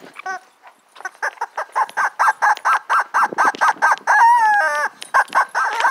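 Vibrant Life rubber chicken dog toy squeaking in quick succession as it is squeezed over and over, about four or five squeaks a second, with a longer squawk falling in pitch just after four seconds in.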